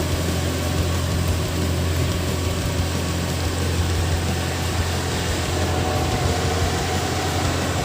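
Heavy diesel engine running steadily at a constant speed with a strong low hum.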